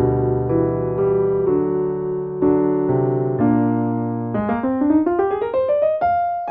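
Solo piano music: slow held chords, then a quick rising run of notes from about four seconds in that ends on a held high note.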